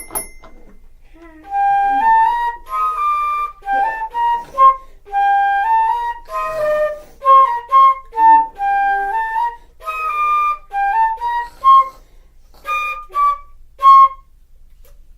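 A short tune played on a flute-like wind instrument: a run of separate notes stepping up and down for about twelve seconds, ending in three short notes. There is a brief click at the very start.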